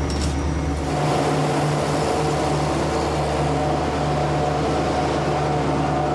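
Renfe Class 319 diesel-electric locomotive idling: a steady engine hum with a few held tones over it. About a second in, the low rumble beneath it changes.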